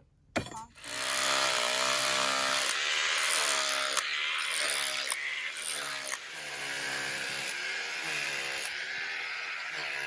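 One pickaxe strike into rocky ground, then about a second in a corded electric demolition hammer starts chiselling into rock. It runs on continuously, a loud buzzing hammer with a motor hum whose pitch wavers, and eases off a little toward the end.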